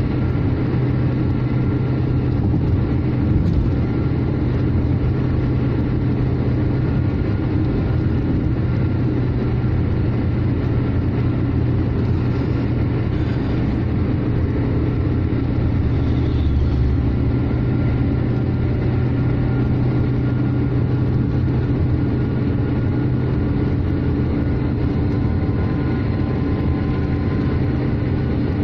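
Steady road noise inside a car cruising at highway speed: tyre rumble and a low engine drone, even throughout.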